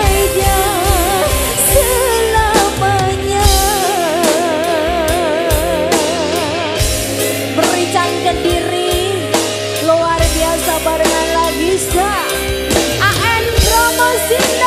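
Live dangdut koplo band music: a lead melody with heavy vibrato over drum kit, bass and electric guitar.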